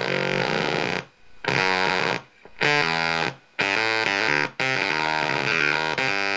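Homemade Green Ringer octave-up fuzz pedal, with boost and a feedback loop, giving out harsh, synth-like distorted tones that jump from pitch to pitch. The sound cuts out abruptly three times for about half a second each, and dips briefly once more.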